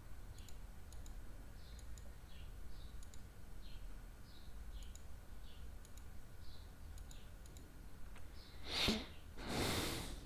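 Computer mouse clicking now and then, faint, against faint high chirps in the background. Near the end come two short, louder rushes of noise.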